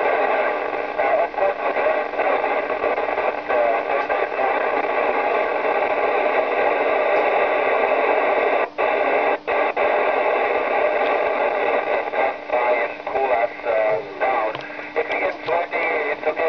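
Steady FM radio noise and static from amateur radio receivers (Icom IC-706 and Yaesu FT-2900) tuned to the ISS downlink on 145.800 MHz, with no voice from the space station: the school's question on the uplink isn't heard. The noise drops out briefly twice a little before halfway and turns choppy toward the end.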